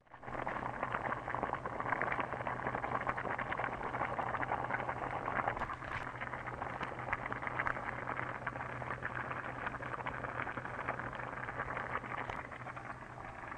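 Stew simmering in a covered earthenware clay pot over a wood fire: a steady, dense crackle of bubbling and burning wood, with a low steady hum underneath.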